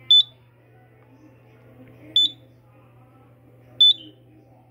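Three short, high-pitched electronic beeps from a house's fire alarm system, spaced about two seconds apart and not quite evenly, over a steady low hum.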